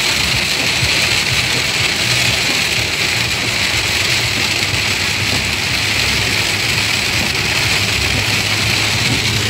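Heavy storm rain and wind beating on a moving car, with the car's engine and road noise underneath, heard from inside the cabin as a loud, steady rush.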